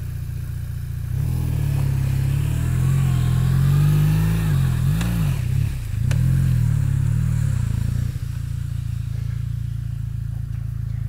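Motorcycle engine working through deep mud, revving up and down from about a second in, its pitch rising and falling several times, with a couple of sharp knocks in the middle. It then settles to a steady, quieter run near the end.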